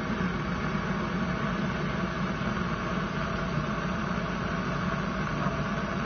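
Portable butane canister gas heater burning, its ceramic radiant burner giving a steady hiss and rumble of gas flame.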